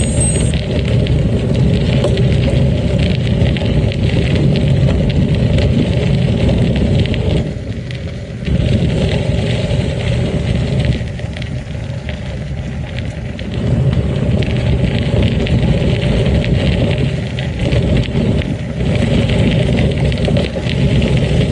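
Wind rushing over a handlebar-mounted camera and tyres rolling on a gravel and sand track as a gravel bike is ridden at speed, with a rattle from the bike. The rush eases off twice, once about a third of the way in and again just past the middle.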